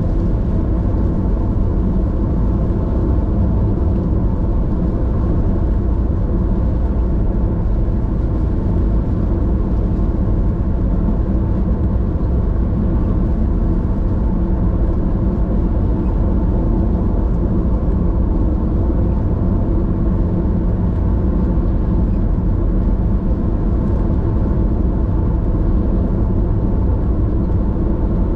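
Steady driving noise heard inside a car's cabin: the tyres on a wet road and the engine make a constant low rumble with a faint even hum.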